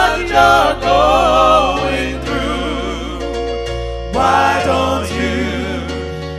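Gospel music: sung vocals with vibrato over sustained bass notes and held chords.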